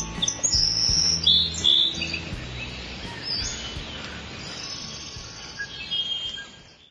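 Birds chirping in short, high calls over the last low notes of a music soundtrack, everything fading out at the end.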